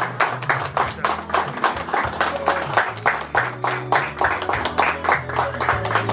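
A small group of people clapping, several sharp claps a second, over music with steady low bass notes.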